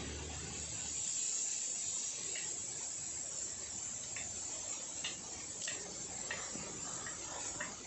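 Steady high-pitched hiss of outdoor background, with a few short high chirps scattered through the second half.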